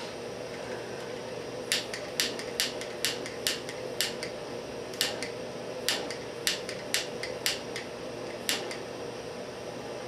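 A dozen or so light, sharp clicks and taps of small hand tools and parts being handled at a workbench during soldering, irregularly spaced over several seconds, over a steady background hum.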